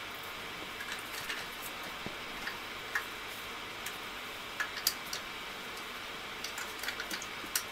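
Light, irregular clicks and taps of a plastic tailgate trim strip and its wiring plugs being handled, several in a quick cluster near the end, over a steady background hiss.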